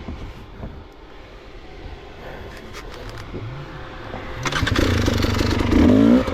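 Enduro dirt bike engine revving, faint at first, then loud and close from about four and a half seconds in, its pitch rising and falling as the throttle is worked.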